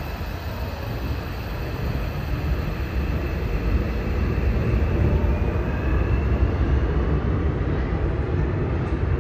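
Seoul Subway Line 7 electric train rumbling on the elevated track. The low rumble grows louder over the first few seconds and then holds steady, with a faint rising motor whine later on.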